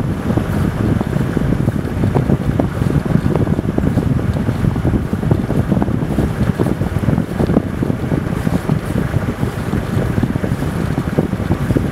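Wind buffeting the microphone: a loud, steady rumble with a gusty crackle.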